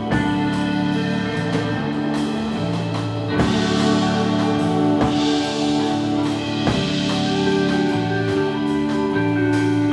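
Live band music from electric guitars, keyboard and drum kit, with long held notes. About three and a half seconds in, the drums pick up with cymbal wash and a few separate hits.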